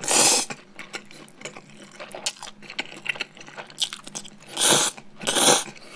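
Bibim-myeon noodles slurped from a bowl and chewed: one long slurp right at the start and two more close together near the end, with soft wet chewing in between.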